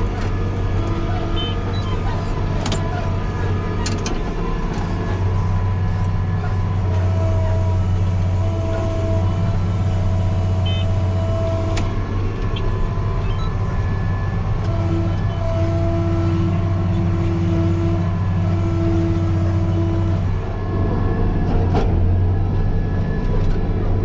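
Case IH 7130 tractor's diesel engine running steadily under load while pulling a harrow, heard from inside the cab, with a brief change in its note about twenty seconds in.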